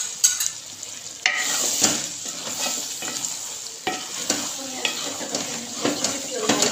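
Spatula stirring and scraping through a thick dal and keema mixture in a metal pot, with knocks against the pot. The mixture sizzles as freshly added yogurt is worked in, and the sizzling grows louder about a second in.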